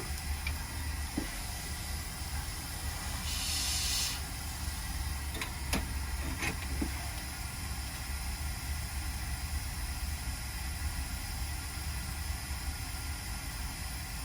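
Steady low hum with an even background hiss. A short burst of hiss comes a little over three seconds in, and a few faint clicks follow around five to six seconds.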